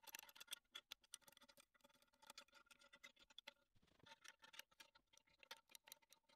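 Faint, rapid metallic clicks and taps of an open-end wrench working hex nuts and knocking against a welded steel housing.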